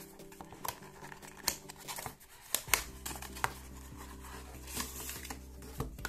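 Small cardboard toy box being torn open by hand: the paperboard tab ripping and the flaps and contents crinkling, with a string of sharp snaps and clicks, the loudest about halfway through.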